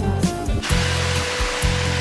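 Background music with a steady bass beat; a loud even hiss joins it about two-thirds of a second in.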